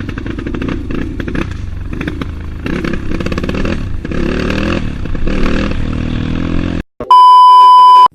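Trail motorcycle engine running under changing throttle, its pitch rising and falling, cut off suddenly about seven seconds in. It is followed by a loud, steady electronic beep tone lasting about a second.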